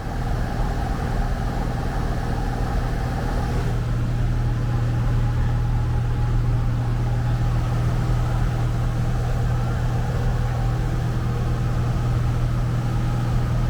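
Steady drone of a Cessna Skyhawk 172's piston engine and propeller heard inside the cabin in level cruise, a constant low hum with steady overtones.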